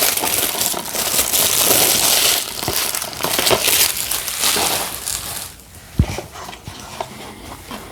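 Plastic shrink wrap crinkling and crackling as it is pulled off a DVD case. About six seconds in there is a single knock, followed by a few faint clicks as the case is handled.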